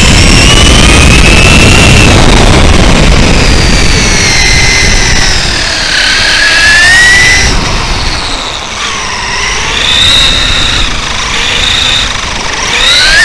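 Traxxas E-Revo 1/10 RC truck's brushless electric motor and gears whining, the pitch rising and falling with throttle and speed, over a loud rough rumble of tyres on asphalt and wind, heard from a camera mounted on the truck itself.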